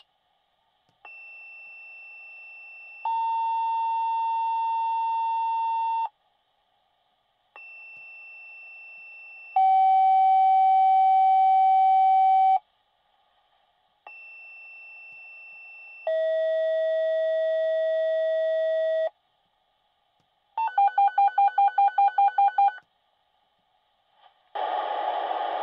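Fire department dispatch paging tones over a radio channel: three two-tone pages, each a quieter high tone of about two seconds followed by a louder lower tone of about three seconds, each pair's second tone lower than the last. A pager then gives a rapid alert of about ten beeps at roughly five a second, and a dispatcher's radio voice begins near the end.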